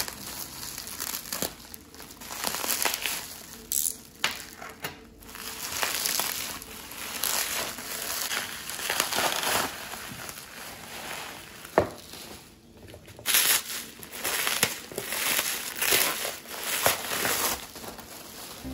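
Bubble wrap and cardboard wrapping crinkling and rustling in irregular bursts as a parcel is cut open and unwrapped by hand. A single sharp click comes about twelve seconds in.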